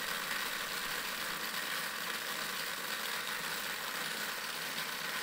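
Next Advance Bullet Blender Storm 24 bead homogenizer running steadily at speed 8, its motor shaking beads through eight sealed microcentrifuge tubes of soft tissue and buffer. It makes an even, unchanging noise.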